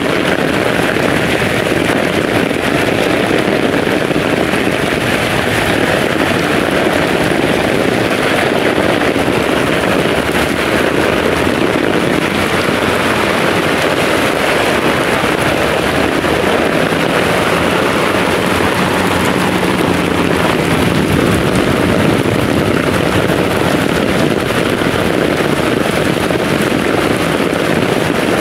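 Heavy rain pouring down, a loud, steady hiss of downpour.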